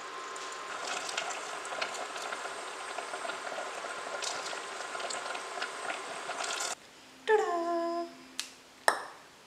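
Fried milk pieces frying in hot oil: a steady sizzle with scattered crackles. After about seven seconds the sizzle cuts off. A short tone that falls slightly in pitch follows, then two sharp clicks near the end.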